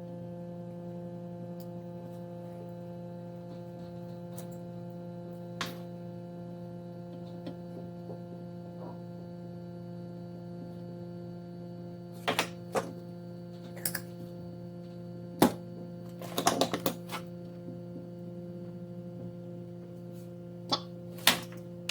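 Steady electrical hum made of several fixed tones, with a few sharp clicks and taps of small tools at a soldering bench from about halfway in. The loudest click comes about two-thirds of the way through.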